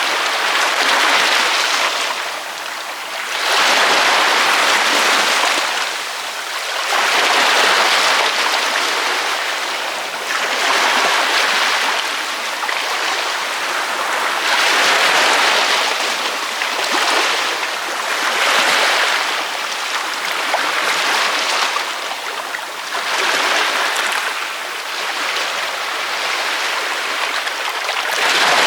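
Ocean waves breaking on a beach, a rushing wash that swells and recedes every three to four seconds.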